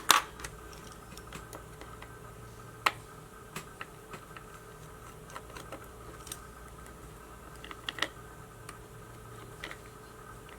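Scattered sharp clicks and taps of small tools and plastic parts being handled while a small action camera is taken apart, over a steady faint electrical hum.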